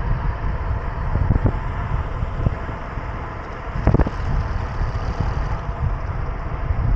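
Wind buffeting the microphone of a moving road bicycle, a constant low rumble with road noise. There is a short knock about four seconds in.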